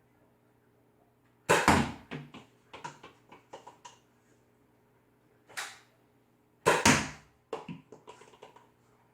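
Nerf Rival Fate blaster converted to fire Mega darts, firing twice, about 1.5 s and 7 s in, each loud shot followed by a couple of seconds of lighter clicks and clatters. A shorter sharp sound comes just before the second shot.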